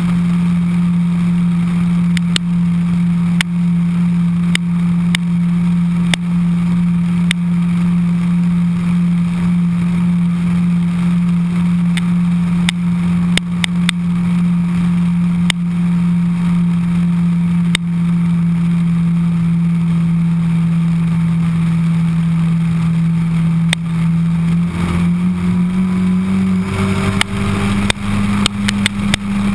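Suzuki Hayabusa's inline-four engine running at a steady cruising pitch, with road and wind rush and scattered sharp clicks. Near the end the pitch climbs and steps up as the bike speeds up.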